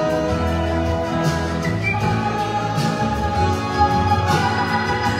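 A live blues-rock band plays an instrumental passage with no vocals: electric guitar over bass and drums, with cymbals ticking steadily.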